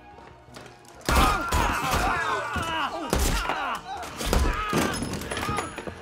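A film gunfight: repeated loud bangs and thuds with shouting voices over a music score, breaking out suddenly about a second in.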